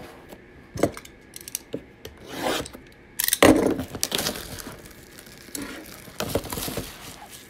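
Handling noise on a tabletop: things rubbing and sliding, a few light clicks, and a louder scrape about three and a half seconds in.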